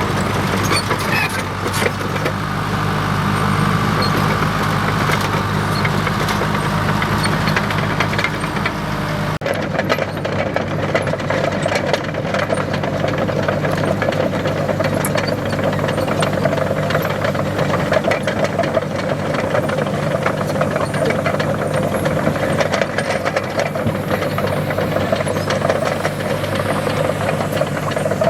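Diesel engine of a heavy earthmoving machine running steadily under load, with a run of short clanks over it. The sound changes abruptly about nine seconds in, taking on a higher, more rattly engine note.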